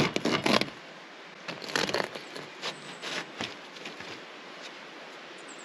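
Knife sawing through the crisp crust of a freshly baked damper loaf on a wooden chopping board. It makes a run of crunching, crackling scrapes, loudest at the start and then fewer and sparser.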